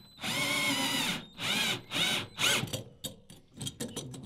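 Cordless drill-driver driving a long wood screw into a timber beam to fix a stainless-steel flue support bracket. The motor runs in one long burst, then several shorter bursts, its pitch rising and falling under load. Near the end it breaks up into quick short bursts.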